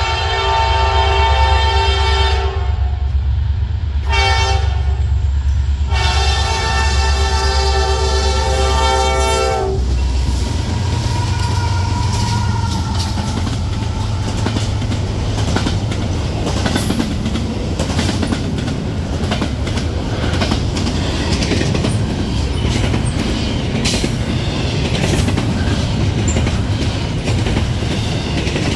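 Diesel freight locomotive horn sounding for a grade crossing: a long blast, a short one, then a long one that ends about ten seconds in. The locomotives then pass with a heavy engine rumble, followed by double-stack intermodal cars rolling by with steady wheel clatter over the rail joints.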